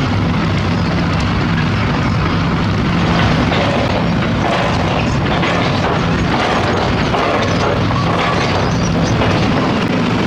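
Heavy construction machine's diesel engine running steadily, with irregular knocks and scraping over it.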